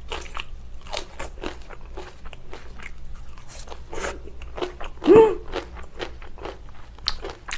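Crisp crunching and wet chewing of a bite of napa cabbage kimchi, heard close up, with many small irregular crackles. About five seconds in there is a short hum of the voice.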